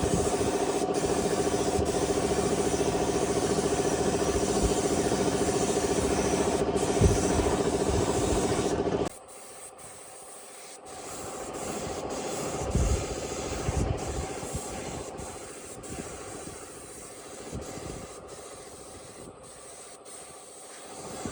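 An engine running steadily at idle cuts off abruptly about nine seconds in. After that come quieter, irregular rubbing and scraping sounds with a few light knocks.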